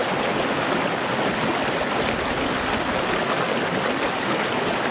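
Water of a small rocky river at low flow running over stones: a steady, even rush.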